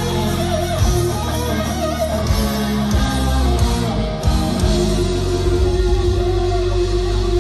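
Live heavy metal band playing loud through a PA: distorted electric guitars, bass, drums and keyboards, heard from within the audience. About four seconds in the band settles into a long held note.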